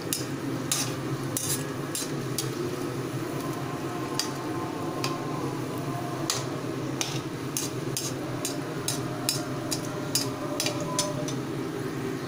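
Breaded chicken pieces deep-frying in hot oil in a metal wok on a low flame: a steady sizzle, with frequent sharp ticks and clinks from a perforated metal spoon against the pan as the pieces are turned.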